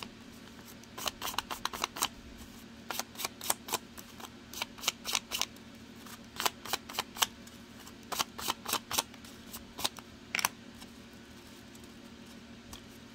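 A small ink pad dabbed and rubbed along the edges of book-page paper petals, making quick runs of short papery scratches and taps that stop about ten and a half seconds in.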